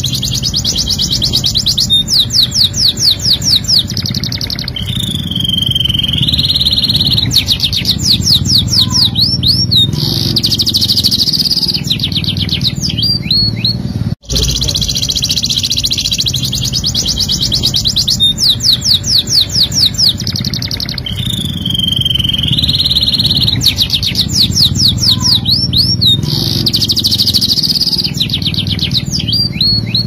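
Domestic canary singing a long, continuous song of rapid trills, fast repeated notes and a lower whistled note. The same song passage plays twice, with a brief dropout about 14 seconds in.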